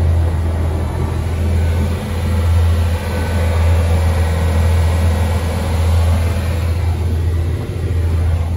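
Yanmar marine diesel engine running steadily as the sailboat motors along, a constant low drone.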